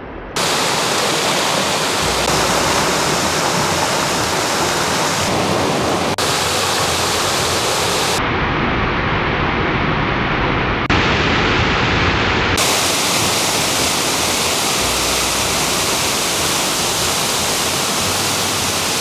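Mountain waterfall cascading over rock: a steady, loud rush of water. Its tone shifts abruptly several times.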